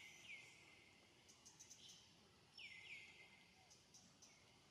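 Faint forest background: a steady high hiss with short falling chirps, heard in pairs near the start and again about two and a half seconds in, plus a few soft ticks.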